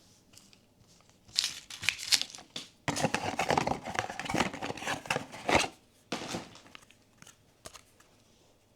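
Blind-box packaging being handled and opened: the wrapper crinkles and tears in a run of crackly bursts, densest in the middle, with a few small clicks near the end.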